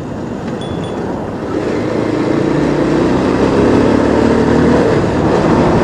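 Single-cylinder engine of a new BS6 Bajaj 220 motorcycle running under way. Its note climbs gently and grows louder over the first few seconds as the bike accelerates, then holds steady.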